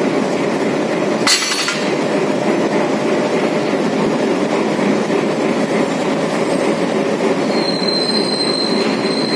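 Diesel locomotive running steadily at close range as it is brought up to a passenger coach for coupling. There is a brief clatter about a second in, and a thin high squeal joins near the end.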